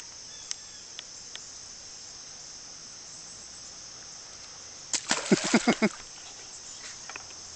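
Steady high-pitched chirring of insects such as crickets, with a few light clicks in the first second and a half and a short burst of a human voice about five seconds in.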